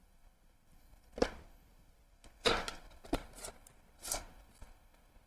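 A spoon scraping and knocking into a tub of firm, hard-to-melt ice cream: a handful of short scrapes and taps.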